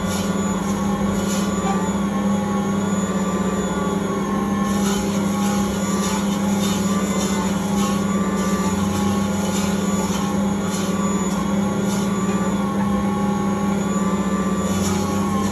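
Ankarsrum Original Assistant stand mixer running steadily as its rotating steel bowl kneads pizza dough: a constant motor hum with a faint wavering whine above it.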